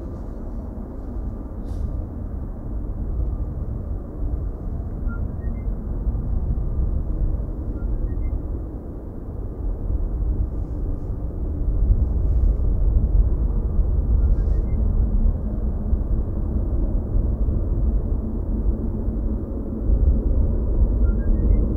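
Low, steady rumble of a Boeing 777-300 airliner's jet engines heard from across the airfield, growing louder about halfway through and again near the end.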